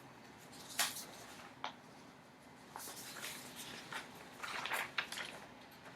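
Quiet room with a soft click about a second in, another shortly after, and faint rustling later on.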